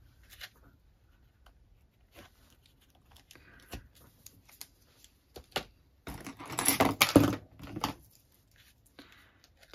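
Small rustles and clicks of card making: a strip of Tear & Tape double-sided tape is pulled from its roll and a ribbon is pressed onto a paper note card. A louder rustling stretch lasts about two seconds, starting about six seconds in.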